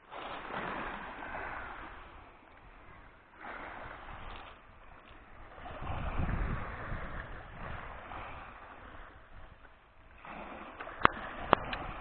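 Sea waves washing onto the shore, swelling and falling back every few seconds, with two sharp clicks near the end.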